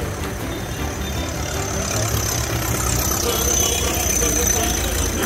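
Vintage tractor engines running steadily as tractors drive past one after another, a little louder in the second half as one passes close.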